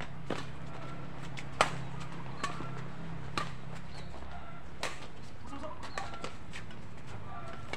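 Badminton rackets striking a shuttlecock back and forth in a doubles rally: a string of sharp, short hits about every one to one and a half seconds, the loudest about a second and a half in.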